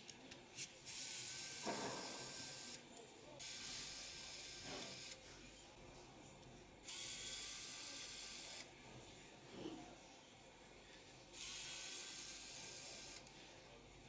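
Spray can hissing in four separate bursts of about one and a half to two seconds each, with short pauses between them.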